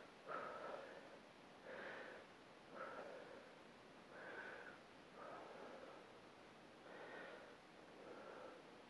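Faint, rhythmic breathing of a woman exerting herself in a side plank with clams: about seven short breaths, one a little over every second.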